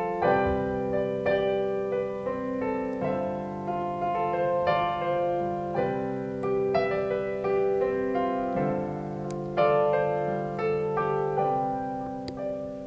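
Digital piano playing a slow instrumental interlude: struck chords held and changing every second or two under a simple melody.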